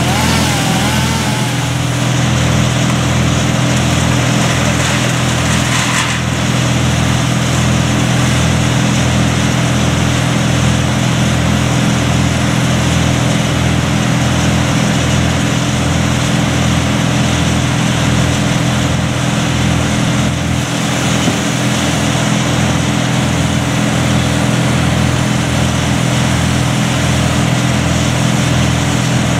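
An engine running steadily at one constant speed, with a low, even pulse about one and a half times a second.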